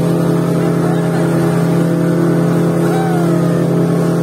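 Speedboat engine running steadily at cruising speed, a constant drone over the rush of water churning along the hull and wake.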